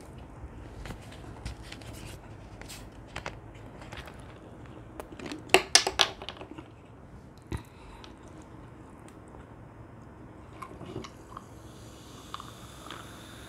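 A plastic cola bottle is handled and its screw cap twisted off, giving a quick cluster of loud clicks about six seconds in. Near the end, cola is poured over ice into a glass mug and fizzes.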